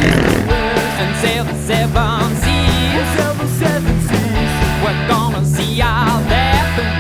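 Rock song with guitar and a singing voice over a steady drum beat and bass line.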